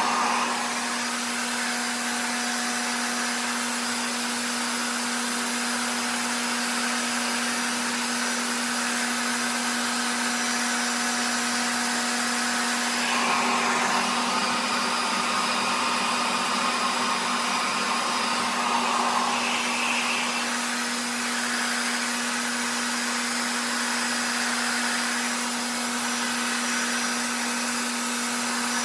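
RevAir reverse-air blow dryer running steadily: a constant motor hum with a rush of air and suction. Its sound shifts briefly a couple of times in the middle.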